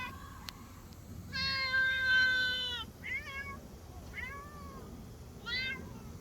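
Domestic cat meowing: one long, drawn-out meow about a second in, then three short meows.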